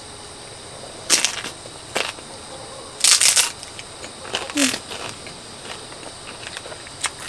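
Close-up crunching of a crispy pan-fried flat dumpling being bitten and chewed: a handful of irregular crackly crunches, the loudest about three seconds in.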